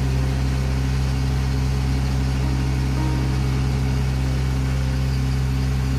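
A motorboat's engine runs at a steady speed with a deep, even hum, over a constant rush of water.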